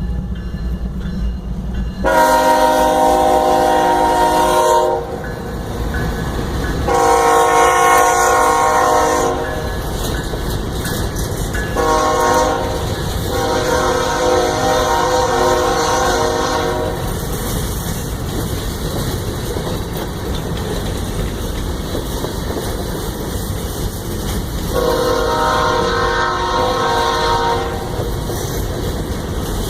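Train horn sounding over the low rumble of a passing train: two long blasts, a short one and a long one, the pattern of a grade-crossing signal, then one more long blast near the end.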